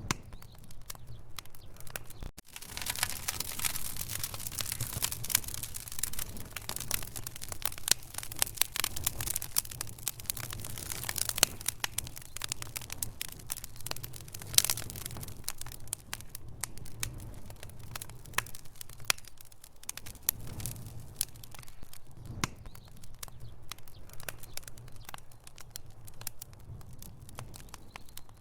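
Wood fire crackling and popping in a fireplace: dense sharp snaps over a steady low rumble of burning, busiest for the first half and thinning out later.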